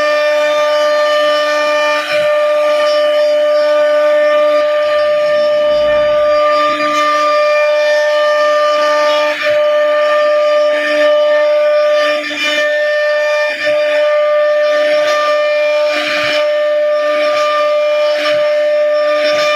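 CNC router spindle running at a steady high-pitched whine while the bit carves a flower design into wood, with the cutting noise swelling and easing as the tool moves.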